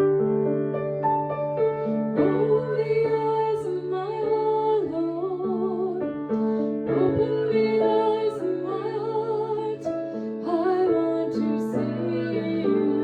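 A woman singing a hymn with held, wavering notes over sustained piano or keyboard chords.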